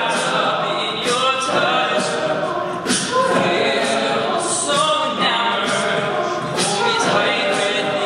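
All-male a cappella group singing, a lead voice over sustained backing chords, with sharp beatboxed percussion hits into a handheld microphone.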